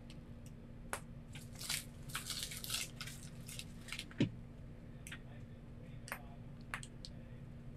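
A pointed tool worked in wet resin inside a plastic trinket-tray mold by a gloved hand: scattered light clicks, scrapes and rustles, with a dull knock about four seconds in. A steady low hum runs underneath.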